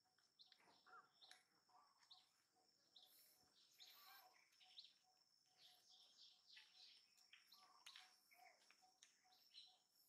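Near silence with faint outdoor ambience: many short, high chirps scattered throughout, like small birds calling, over a steady high insect whine.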